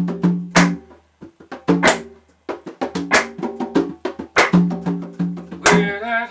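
Hand drums slapped in a loose, uneven groove, each stroke sharp with a short ringing tone, played with an electric guitar in a live jam.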